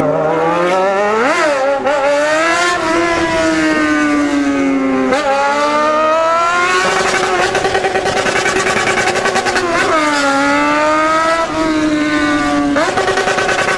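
Yamaha XJ6 inline-four, its exhaust run with just the pipe and no silencer, very loud as the bike is ridden hard through several upshifts. The engine note climbs steeply in each gear and drops at every shift, with a quick rise in revs near the end.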